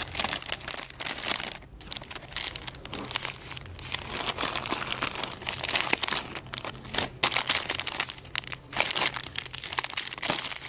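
Plastic bags of soft-plastic fishing lures crinkling and rustling as a hand rummages through a box of them, in dense, irregular bursts of crackle.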